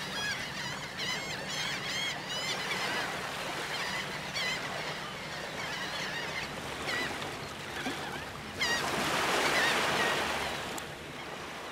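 Birds giving series of short, repeated calls over a steady wash of waves, with a faint steady low hum underneath. The surf swells loudest about nine seconds in, then eases off.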